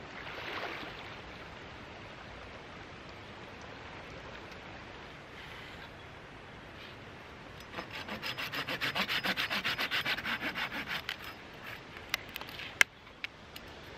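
Hand saw cutting through a wooden branch: a quick, even run of back-and-forth strokes for about three and a half seconds, followed by a few sharp clicks and one louder crack.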